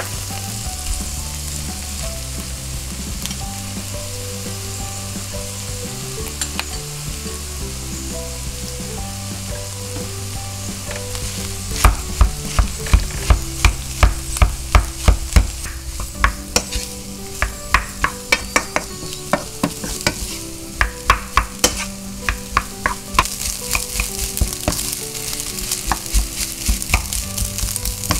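Fried rice with ham and vegetables sizzling in an oiled frying pan while it is stir-fried. About halfway through, the spatula starts clacking against the pan about twice a second as the food is tossed, with short pauses.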